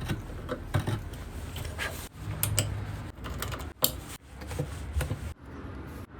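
Workshop handwork: a run of small clicks, taps and scrapes from tools and parts handled on a bench, with one sharp knock just before four seconds in.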